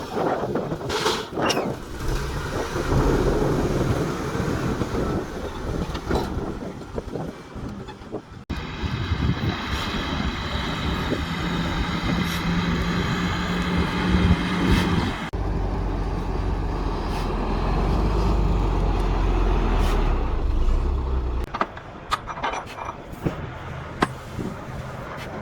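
Heavy construction machinery, a bulldozer and dump truck, with diesel engines running and scattered knocks. The sound changes abruptly several times, about 8 s, 15 s and 21 s in: a steady whining engine tone, then a deep low rumble, then quieter running with clanks.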